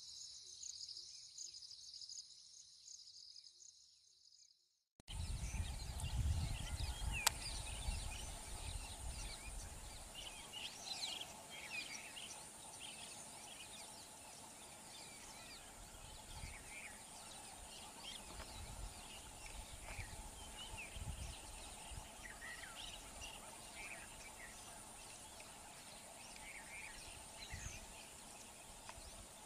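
Crickets trilling in a pulsing high band that fades away. After a cut about five seconds in, outdoor ambience of birds chirping over a steady high insect drone, with a low rumble for the first few seconds after the cut.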